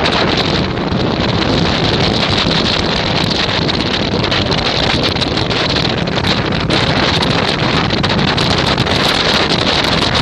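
Strong wind buffeting the microphone: a loud, steady rush with many small crackles throughout.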